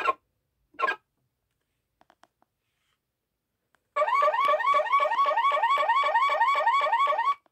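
Electronic sound effects from the speaker of a Road Rippers Top Tune Hummer HX toy truck, set off by its roof buttons: two short horn beeps, then after a pause a car-alarm whoop of rising tones, about four a second, for about three and a half seconds.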